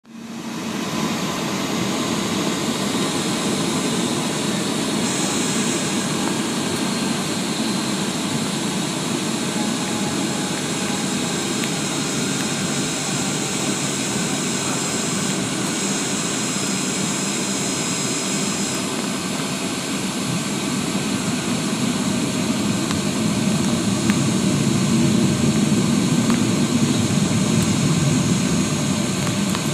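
Boeing 757-200's Pratt & Whitney PW2000 turbofan engines heard from inside the cabin: a steady roar that grows a little louder over the last few seconds.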